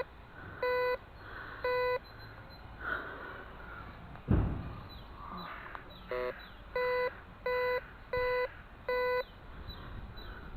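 Metal detector giving short, even target beeps on one pitch as it is swept over a buried target, twice early on and four times in quick succession near the end, with one warbling lower tone between them; the detectorist expects the target is probably a pull tab. A single heavy thud about four seconds in.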